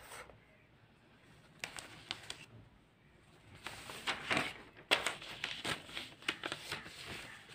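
Paper sheets being handled and turned over, crinkling and rustling in several bursts from about a second and a half in until near the end.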